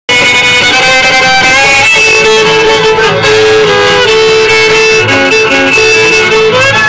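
Bluegrass band playing live, the fiddle carrying the melody over banjo, guitars and upright bass. The music starts abruptly at the opening.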